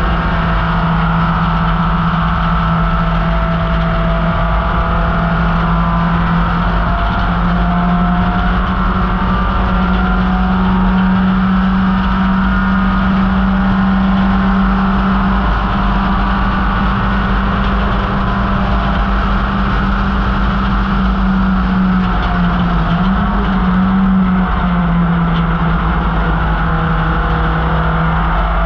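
1968 MGB GT's four-cylinder engine running flat out under racing load, a loud, steady note that steps up in pitch about seven seconds in and briefly dips and rises again about two-thirds of the way through.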